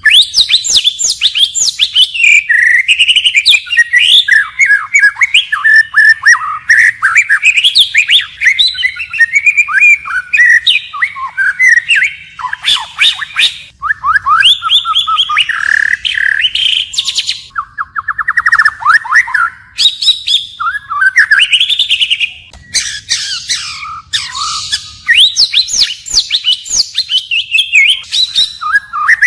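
White-rumped shama singing a loud, near-continuous, varied song: clear whistled glides, rapid trills and harsh notes, switching from phrase to phrase with only brief pauses.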